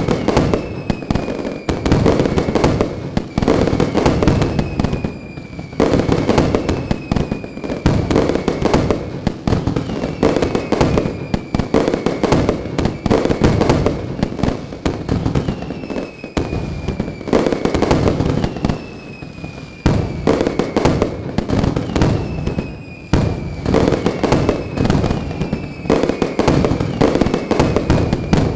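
Aerial fireworks bursting in rapid succession, a dense continuous crackle and popping with no letup. A whistling shell falls slightly in pitch every second or two.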